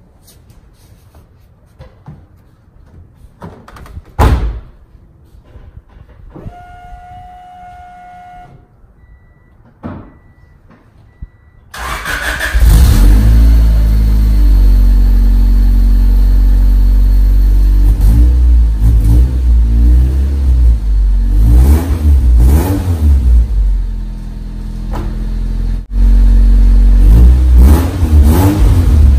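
Honda Civic EG hatchback engine through a newly fitted Yonaka aftermarket exhaust. After some clicks, a single thump and a few short electronic beeps, it cranks and starts about twelve seconds in. It then settles into a loud idle and is revved in several blips.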